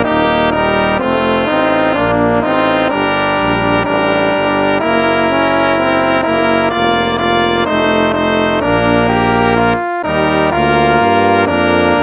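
Instrumental hymn played in a brass tone, a melody over held chords, with a brief pause about ten seconds in before the music resumes.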